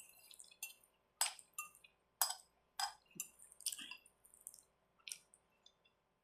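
Close-up eating sounds of a person chewing spaghetti: about ten short, wet mouth clicks at irregular intervals.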